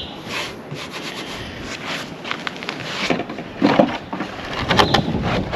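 Rubbing and scraping on OSB roof boards, with a few knocks, as hands and a strip of edge trim are worked along the roof edge. The knocks are loudest a little past halfway and again near the end.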